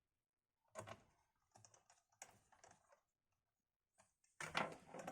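Faint, irregular clicks and taps of laptop plastics being handled: a single click about a second in, a run of small taps after it, and a louder cluster of knocks near the end.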